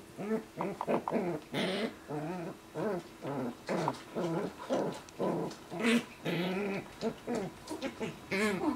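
West Highland White Terriers play-fighting, a mother and her six-week-old puppy: a string of short growls and whines that rise and fall in pitch, coming one after another every half second or so.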